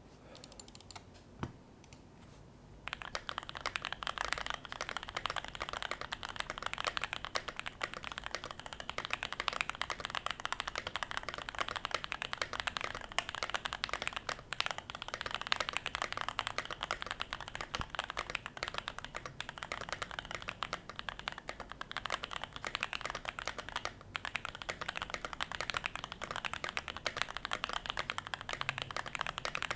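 Fast, continuous typing on a Keychron Q1 aluminium-plate custom mechanical keyboard with lubed and filmed JWK Nylon T1 tactile switches, tape-modded and foam-filled. The typing starts about three seconds in, after a single click.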